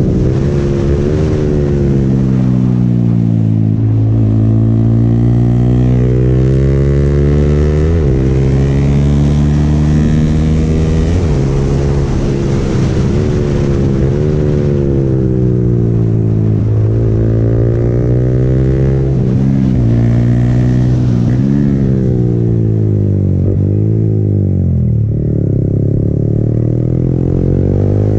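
Motorcycle engine under the rider, its pitch swinging up and down through the gears, with repeated sharp throttle blips: rev-matched downshifts while engine braking.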